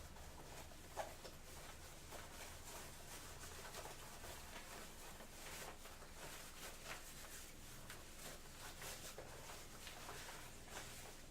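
Faint rustling and handling of a jacket's fabric as it is put on, with one sharper click about a second in.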